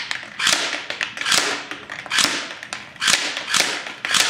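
Airsoft gun fired in semi-automatic, single shots about one a second, six in all, the last few coming closer together. Each shot is a sharp snap that fades within half a second.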